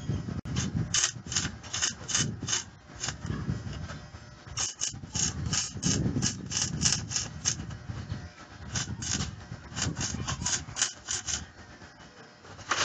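Electric arc welding on a steel frame. The arc crackles in three runs of short, evenly spaced pulses, about three a second, with brief breaks between the runs.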